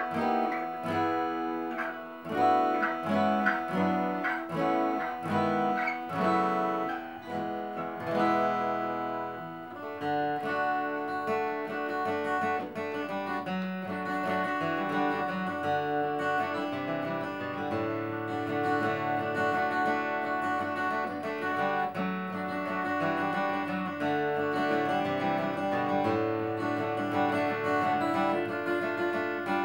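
Martin D-28 dreadnought acoustic guitar played fingerstyle. For the first nine seconds or so the notes are picked one by one with short gaps; from about ten seconds in a steady, denser fingerpicked pattern takes over.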